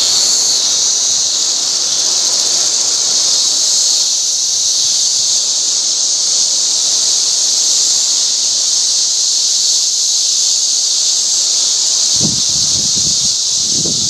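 Dense chorus of periodical cicadas singing, a loud steady high-pitched whine. A low rumbling comes in near the end.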